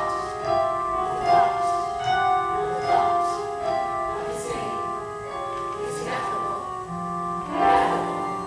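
Live stage-musical music: held keyboard chords with occasional sharp accents.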